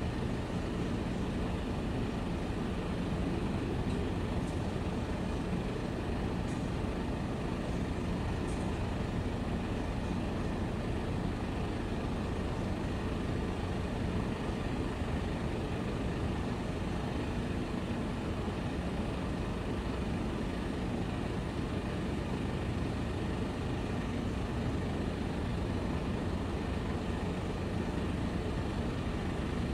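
Steady low rumble of heavy diesel engines with a faint even hum in it, unchanging throughout.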